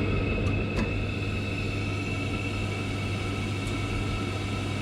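Gas boiler's fan running with a steady hum as it tries to light, with a few faint ticks. No ignition spark follows, because the boiler's spark generator has failed.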